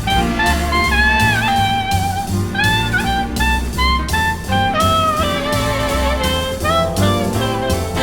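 Jazz music with a bending horn melody over a walking bass and drum kit.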